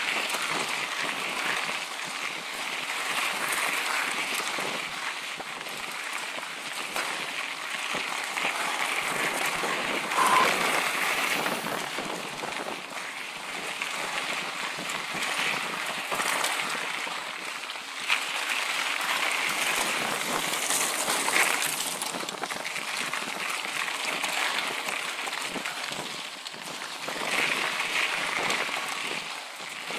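Mountain bike riding fast over a dry dirt-and-gravel desert singletrack: a steady crackling rush of tyres on loose grit and the bike rattling over the rough trail, with a few louder knocks.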